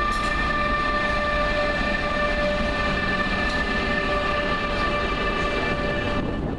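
Intermodal freight train hauled by an SBB Cargo electric locomotive passing at speed, its wagons rumbling over the track. A steady high ringing tone with overtones runs over the rumble and stops shortly before the end.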